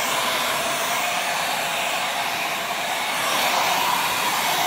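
Handheld hair dryer blowing steadily, with a faint motor whine under the rush of air, dying away at the end.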